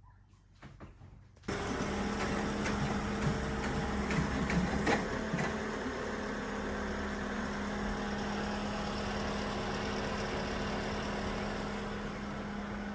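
Engine of a truck-mounted furniture lift running steadily, cutting in suddenly about a second and a half in, with a few knocks a few seconds later.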